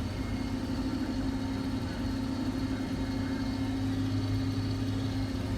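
Diesel engine of a Case IH 1680 combine running steadily at an even speed.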